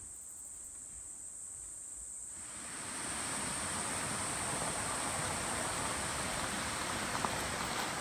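Rainforest insects keeping up a steady high-pitched buzzing chorus. About two and a half seconds in, an even rushing hiss rises beneath it and stays.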